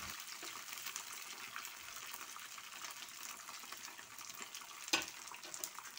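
Peanuts frying in oil in a wok, a faint steady sizzle with small crackles as a metal spatula stirs them. A single knock about five seconds in.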